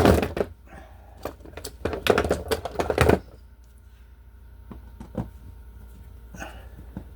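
Hand tools clattering and clinking as they are pulled out and handled in a search for a screwdriver: two dense bursts of rattling in the first three seconds, then scattered light clicks.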